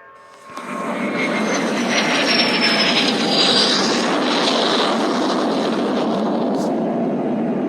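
Jet aircraft noise: a loud, steady rush that starts suddenly about half a second in, with a high whistle falling in pitch over the first few seconds.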